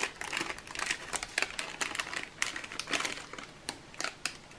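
Small clear plastic bag of suction cups crinkling and rustling as it is handled, with many small irregular clicks and ticks.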